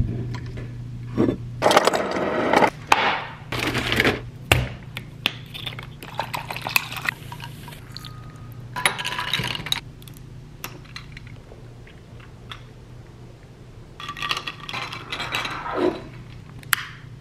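Kitchen drink-making sounds: water poured into a glass over ice, with glass clinks and knocks in several bursts over a low steady hum.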